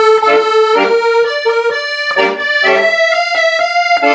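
Solo accordion playing a phrase of a trot song's introduction: a melody over chords, its accompaniment played in a changed, accented rhythm instead of the usual oom-pah beat.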